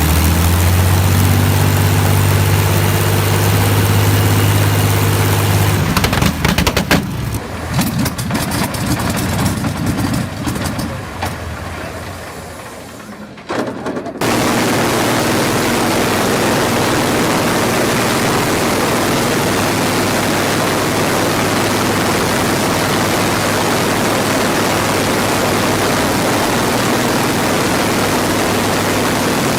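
Old propeller aircraft piston engine running steadily. About six seconds in it begins sputtering and popping irregularly, getting quieter. About fourteen seconds in it is abruptly replaced by another engine and propeller holding a steady, loud drone.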